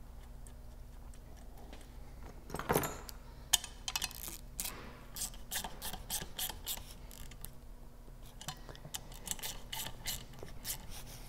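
Metal-on-metal handling of the bolts on a turbocharger's oil return adapter as they are fitted and tightened: a short scrape or clunk a few seconds in, then a run of light, uneven metal clicks.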